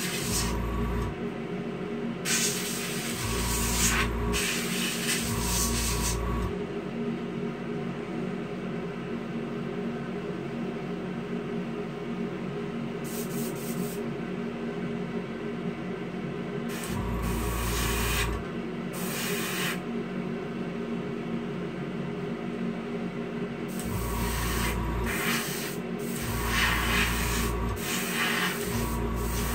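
Airbrush spraying clear coat in short bursts of air hiss, each about a second long, over the steady hum of the spray booth fan and the airbrush compressor. There are several bursts in the first few seconds, a pause of about ten seconds, then more bursts.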